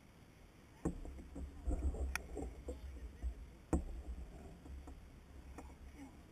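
Handling noise on a plastic fishing kayak: a few sharp knocks and bumps, the loudest about a second in and again near four seconds in, over a low rumble.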